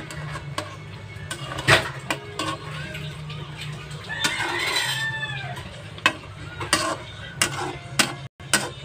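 A metal spatula knocking and scraping against a wok while chicken livers and eggs are stirred in sauce, in a run of sharp clicks and clanks. About four seconds in, a chicken calls in the background.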